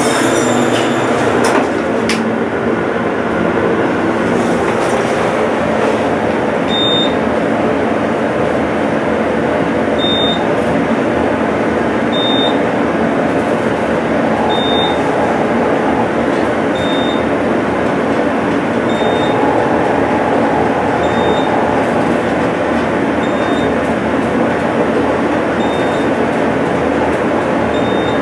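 Innovation traction elevator car riding upward: a steady rushing ride noise fills the cab, and a short high beep sounds about every two seconds as it passes each floor.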